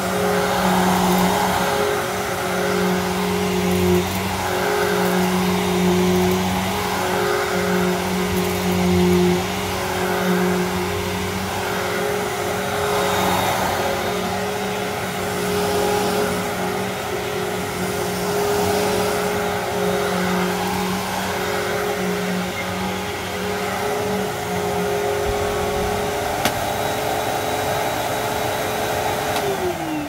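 Riccar Vibrance Classic upright vacuum cleaner running steadily as it is pushed back and forth over carpet, the sound swelling and easing with each stroke. Near the end it is switched off, its pitch falling as the motor spins down.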